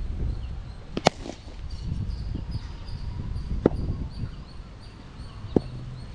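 Three sharp cracks, about a second, two and a half seconds and two seconds apart, the first the loudest: a cricket bat striking the ball. A low rumble runs underneath.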